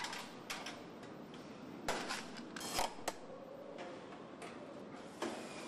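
Car assembly plant ambience: a steady background hum with irregular sharp metallic clicks and clanks, the loudest a little under three seconds in.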